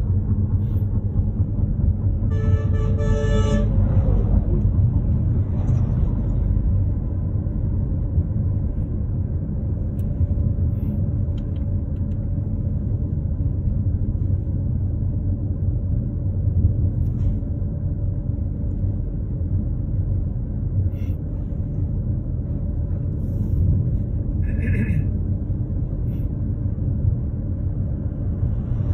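Steady road and engine rumble inside a moving car's cabin. A vehicle horn sounds for about a second and a half a couple of seconds in, its pitch dropping as it ends.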